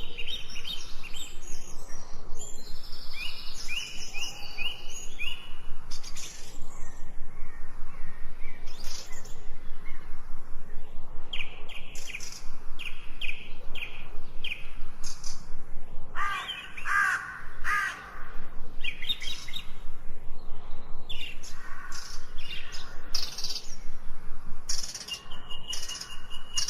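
Several birds singing and calling, with many short chirps and quick series of repeated notes, some overlapping.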